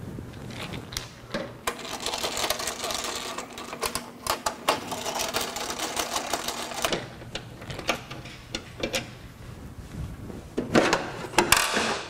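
Plastic cover of an electrode steam humidifier being unfastened and lifted off: a dense run of rapid clicks and rattles for several seconds, then scattered clicks and a cluster of louder knocks near the end.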